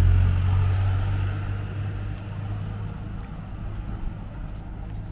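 A road vehicle that has just passed close by, its low engine rumble dying away over the first three seconds as it moves off.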